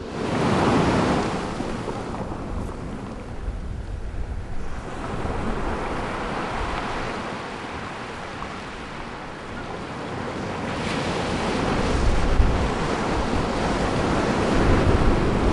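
Sea surf washing onto a beach, rising in a surge about a second in, easing, then building again over the last few seconds.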